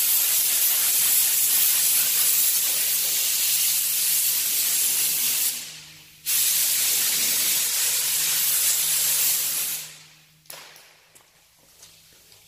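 Paint spray gun spraying in two long passes: a steady hiss that stops briefly about halfway, starts again sharply and dies away near the end as painting finishes.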